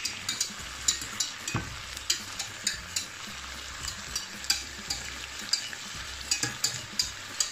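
Beef steaks and onions sizzling in a nonstick frying pan, a steady hiss broken by frequent sharp crackles, with a spatula moving the meat.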